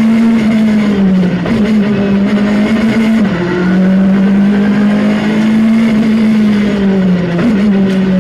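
Skoda Fabia R5 rally car's turbocharged four-cylinder engine heard from inside the cabin, pulling hard and held high in the rev range. Its steady note dips and jumps sharply a few times, about a second and a half, three seconds and seven and a half seconds in.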